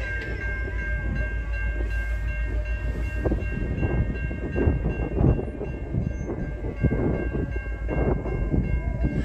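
Railway level-crossing warning bell ringing steadily as the crossing's gate arms come down, over an uneven low rumble.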